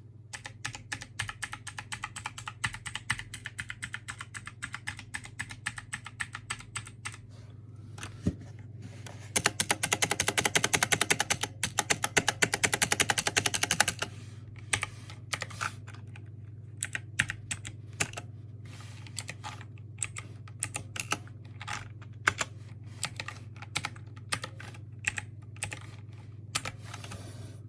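Logitech G513 mechanical keyboard being typed on: quick runs of key clicks, then from about nine seconds in a louder stretch of very rapid keystrokes lasting about five seconds, then slower, separate key presses.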